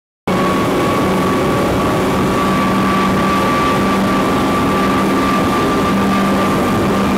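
Triple outboard engines of a patrol boat running at high speed: a loud, steady drone with two steady engine tones over the rush of the wake, cutting in sharply just after the start.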